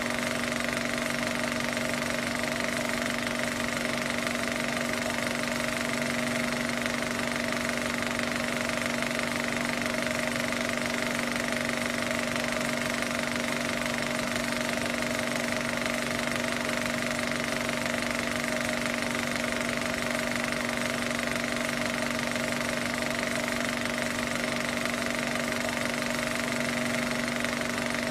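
Steady mechanical running of a home-movie film projector, with a constant hum and hiss that never changes.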